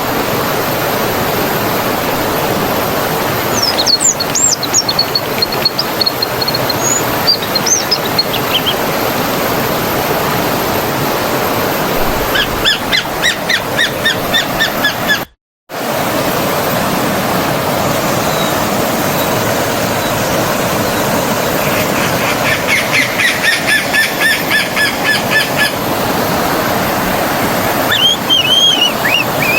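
A stream running steadily, with songbirds calling over it: a few high whistled calls about four seconds in, then quick series of repeated chirps around the middle and again later. The sound drops out completely for under a second near the middle.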